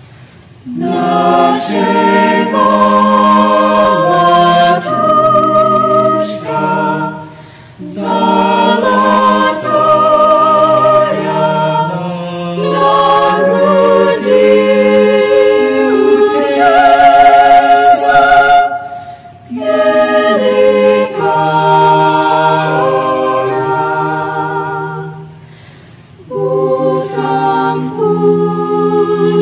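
Mixed chamber choir singing a cappella in held, sustained phrases, starting about a second in, with a few short breaks between phrases.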